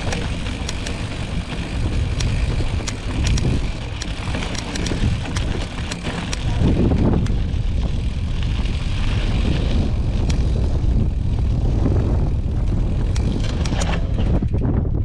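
Mountain bike rolling over dry dirt and gravel: a steady rumble of wind on the microphone and tyre noise, with many small ticks and clicks from stones and the bike.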